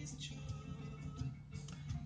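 Quiet background music with steady held tones.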